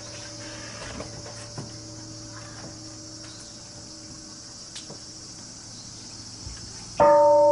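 Steady high chirring of insects, with a faint steady hum and a few soft clicks under it. Near the end a loud ringing tone starts suddenly.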